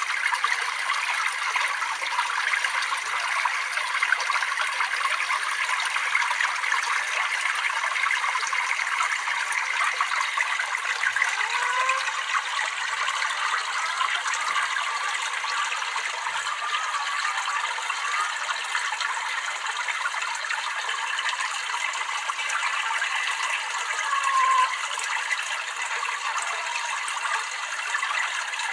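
Water trickling and splashing steadily, with a few short gurgles in the middle and near the end.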